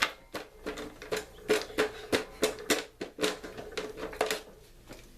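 A quick series of sharp taps or knocks, about three a second and a dozen or more in all, with a faint ringing under them, stopping near the end.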